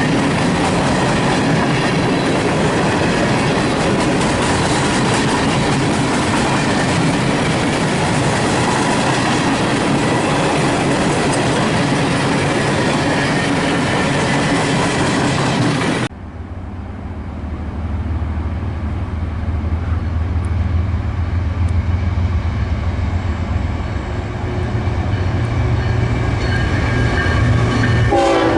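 A train passing close by at speed, a loud steady rush of wheels on rails, cut off abruptly about 16 seconds in. Then a diesel locomotive's low engine rumble, growing louder as it approaches.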